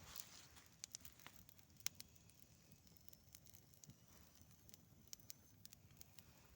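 Small campfire of dry birch wood crackling faintly, with scattered sharp pops at irregular intervals.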